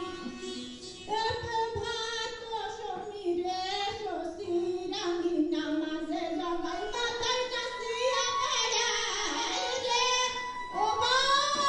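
A high voice singing a slow melody in long, sliding held notes, over a keyboard accompaniment.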